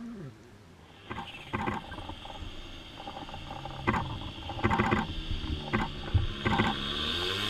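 Volkswagen Polo R WRC rally car heard at a distance on a test stage: a steady high whine sets in about a second in, with a series of sharp cracks and pops, growing louder toward the end as the car approaches.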